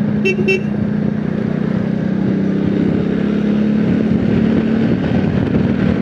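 Single-cylinder four-stroke engine of a 70cc motorcycle running steadily at cruising speed, heard from the rider's seat with wind rush on the microphone. Two short high beeps sound just after the start.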